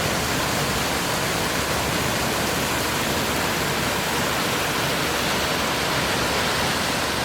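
Mountain stream water falling and flowing over stones: a steady, even gurgling rush.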